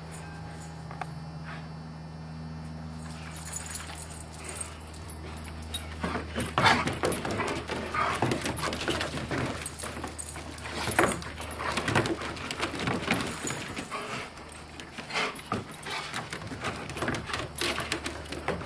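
Young dogs play-fighting on a wooden deck: a busy run of short whines, yelps and scuffles that starts about six seconds in, over a steady low hum.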